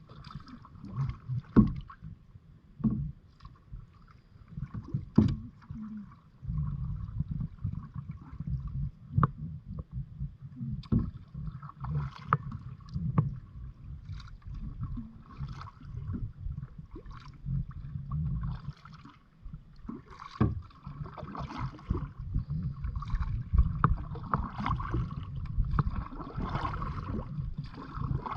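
Kayak paddling: paddle blades dipping and splashing in lake water, with occasional sharp knocks and a low rumble of wind on the microphone.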